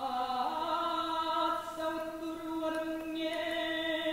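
Choir singing a cappella, holding a sustained chord. The lowest voice part steps up slightly about half a second in, and the upper voices grow brighter about three seconds in.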